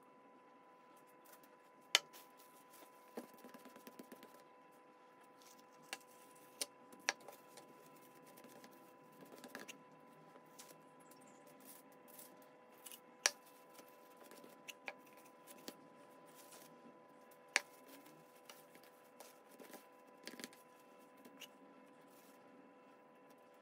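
Cling film crinkling and scattered sharp taps as scone dough is handled and a drinking glass presses down on a wooden cutting board, over a faint steady hum.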